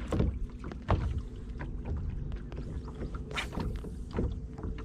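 Water lapping against the hull of a small fishing boat, with scattered irregular knocks and one louder brief noise about three and a half seconds in.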